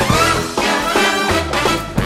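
Upbeat swing-style music with brass, from an iMovie trailer template.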